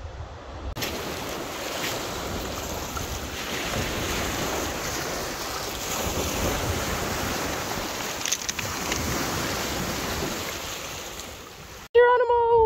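Small waves breaking and washing over a pebble beach, with wind buffeting the microphone. Near the end this cuts off abruptly and a short, high-pitched voice call is heard.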